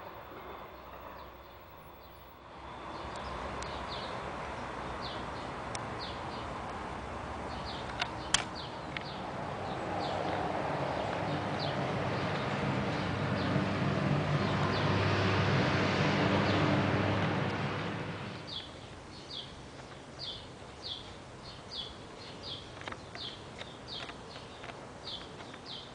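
An engine-like hum with a hiss builds over about fifteen seconds, then dies away. After it, a bird chirps repeatedly, about twice a second.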